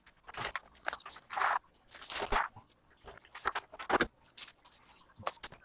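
Plastic cling wrap being pulled out and stretched by hand, crinkling in irregular bursts.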